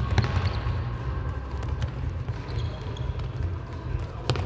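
Players' sports shoes squeaking and thudding on an indoor court floor, in a large echoing hall with a steady low rumble underneath. Sharp knocks come about the start and again near the end.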